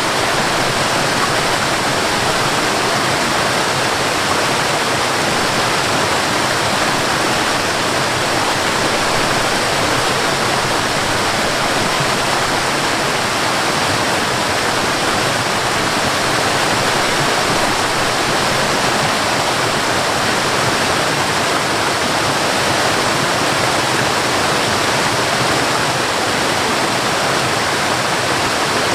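Waterfall and river rushing: a steady, even roar of falling water with no let-up.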